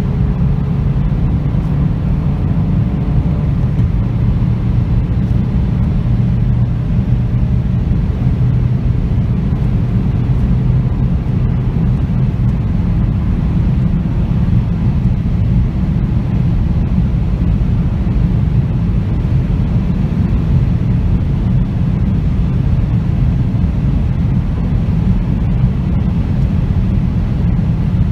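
VW Golf 7 GTD's 2.0 TDI diesel heard from inside the cabin at high speed, about 160 to 185 km/h: a steady low engine drone mixed with road and wind noise. A faint engine note climbs slightly in the first few seconds as the car gathers speed, then holds level.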